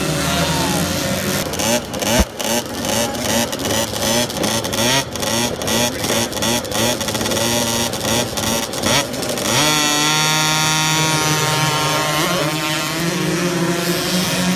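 Several 50cc motocross bikes at the starting gate. The throttles are blipped in quick, repeated revs, then from about halfway through the engines are held at high revs as the bikes launch off the line.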